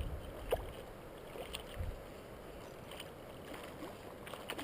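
Faint river water with a few small splashes and knocks, spaced about a second apart, while a hooked fish is played on rod and line.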